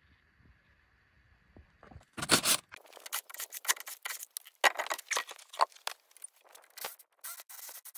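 Near silence for about two seconds, then a run of irregular scraping and rubbing strokes, each brief and sharp, with no motor running.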